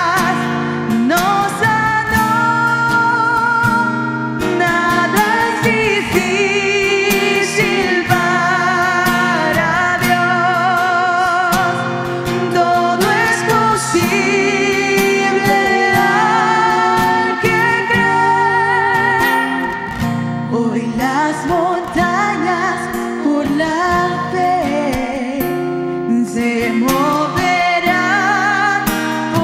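A Christian song performed live: women's voices singing long, wavering held notes over a strummed acoustic guitar.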